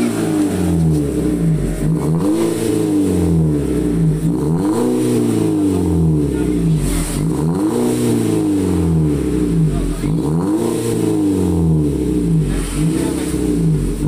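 Toyota Calya engine revved repeatedly through a home-made racing exhaust: the standard muffler is removed and replaced with straight pipe, ending in a Zigen rear silencer with dual tips. About six blips of the throttle, each rising in pitch and falling back to idle, every two to three seconds.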